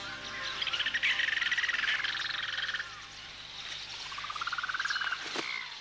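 Jungle animal calls: a loud, rapidly pulsing trill from about half a second in lasting some two seconds, then a second pulsing trill that rises in pitch and grows louder around four seconds in.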